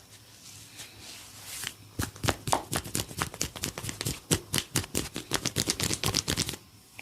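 Head massage: a fast run of sharp taps on the head, several a second, starting about two seconds in after soft rubbing and stopping abruptly near the end.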